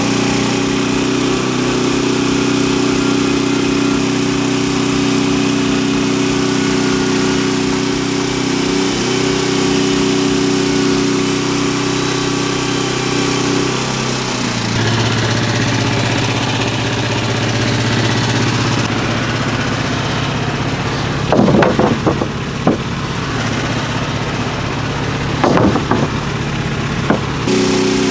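An engine running steadily; its note drops to a lower, steadier pitch about halfway through. Several sharp knocks come in the last few seconds.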